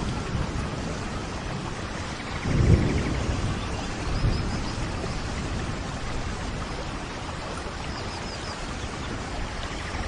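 Steady rain falling, with a brief low rumble about two and a half seconds in and a smaller one near four seconds.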